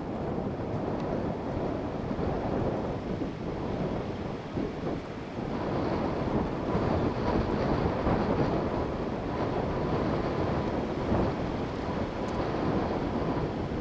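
Strong wind gusting through trees in a steady rushing noise that swells louder about five seconds in, with wind buffeting the microphone.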